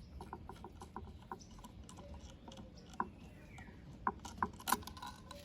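Small metal parts of a disassembled diesel injection pump clicking and tapping as they are handled: a run of light clicks, a few a second, then a few sharper knocks near the end.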